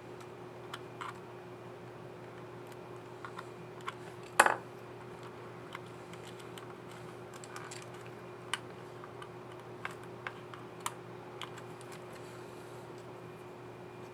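Light, scattered plastic clicks and taps of a laptop keycap and its scissor mechanism being handled and fitted on a ThinkPad X1 Carbon keyboard, with one much louder snap a little over four seconds in.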